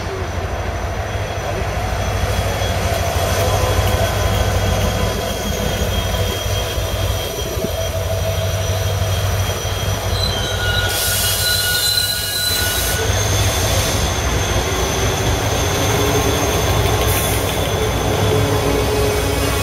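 Diesel-hauled double-deck passenger trains running past station platforms: a steady low rumble of engine and wheels on the rails. About eleven seconds in comes a high squeal with a hiss lasting about two seconds, with a shorter high burst a few seconds later.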